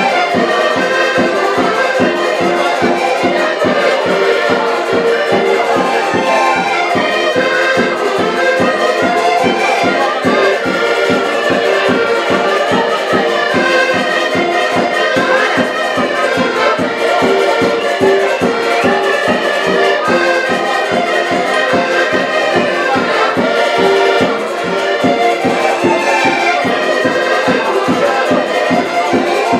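Live Portuguese folk tune played by an ensemble of button accordions together, in a quick, steady rhythm.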